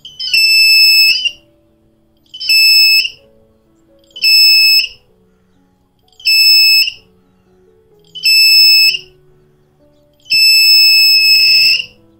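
Piezo buzzer of a simple BC547 transistor metal-detector circuit beeping as steel pliers are held over its copper search coil: the beeps signal that metal has been detected. Six high-pitched beeps of about a second each with short gaps between them, the last one longer.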